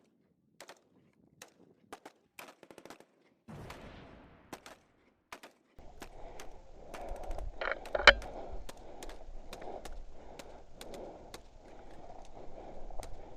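Airsoft replicas firing in a skirmish: scattered sharp cracks of single shots and short strings, irregularly spaced. From about six seconds in, a steady noise sits under the shots, and one loud knock comes at about eight seconds.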